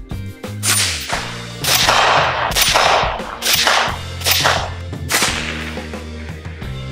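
Background music with a bass line and a sharp, echoing hit on the beat about once a second.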